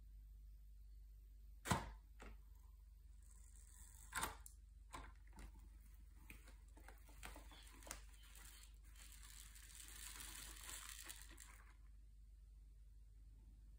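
3D-printed plastic grab bucket on a chain clacking as it is set down and its jaws work, a sharp clack about two seconds in and another about four seconds in, then lighter clicks. A hissing rustle of loose grains being scooped and trickling out of the jaws stops about twelve seconds in.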